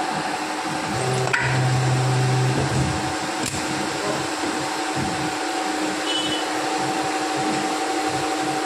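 Plastic injection moulding machine running, its hydraulic pump giving a steady hum. About a second in there is a sharp click, then a low drone for about a second and a half as the machine moves.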